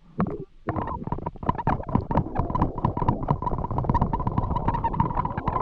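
Paintball marker firing a long, rapid string of shots, many a second, laying down cover fire, with a steady hum underneath.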